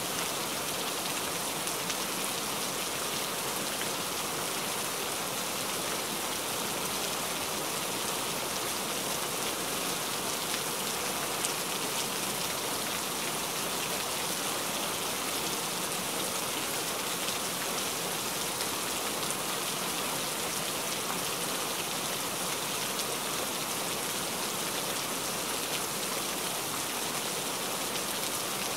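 Steady rain falling: a dense, even hiss of many drops that keeps up without a break.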